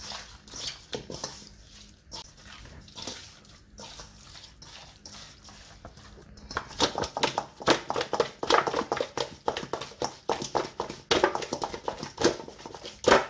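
Wet squelching of hands rubbing oil and seasoning into raw chicken drumsticks in a stainless steel bowl. A little past halfway the sounds turn louder and quicker as the drumsticks are turned over fast and bump against the metal bowl.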